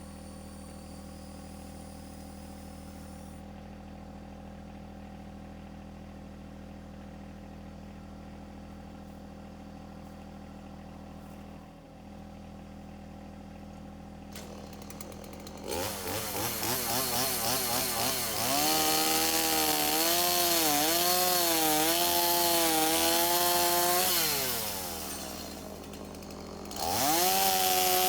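A small engine idles steadily. About halfway through, a chainsaw revs up and cuts, its pitch wavering under load. Near the end it drops back briefly, then revs up and cuts again.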